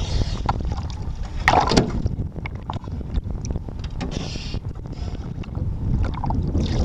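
Wind buffeting the microphone in a steady, uneven rumble, with scattered knocks and bumps of handling against the boat's side and a brief louder burst about a second and a half in.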